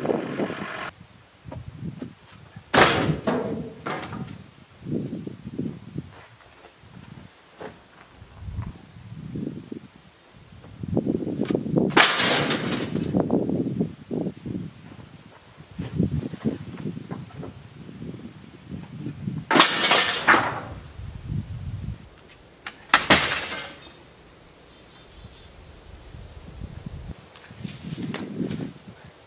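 Scrap debris being thrown out, landing with four loud crashes and clatters and softer thuds and rustles between. Insects chirp steadily and rhythmically throughout.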